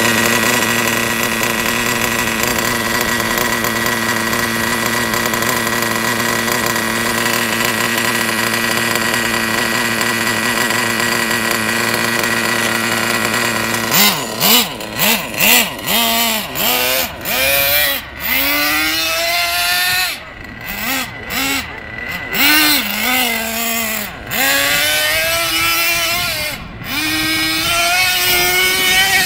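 Traxxas TRX 3.3 nitro two-stroke engine of an RC truck running at a steady high pitch for about fourteen seconds, then revving up and down in quick repeated throttle blips.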